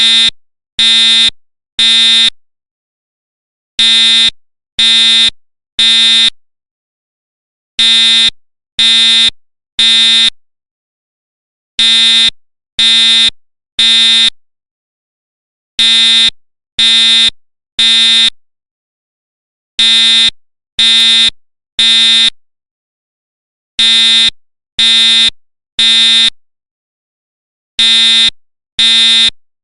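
School fire alarm horn buzzing in the temporal-three evacuation pattern: three half-second blasts a second apart, then a pause, with the group repeating every four seconds.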